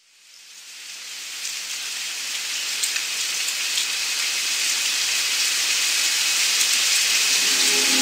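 Recorded rain, steady and even, fading in from silence and growing gradually louder. Near the end, low sustained music notes come in beneath it.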